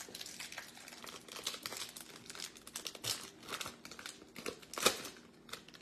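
Plastic wrapper of a Topps Chrome baseball card pack crinkling and tearing as it is opened by hand, a dense run of irregular crackles with one sharp, loud crackle near the end.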